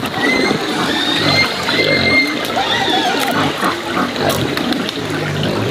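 Water pouring steadily from a pipe into a plastic tub, with splashing as pork is rinsed by hand in a metal basin. A thin, high whistling call sounds over it through the first few seconds.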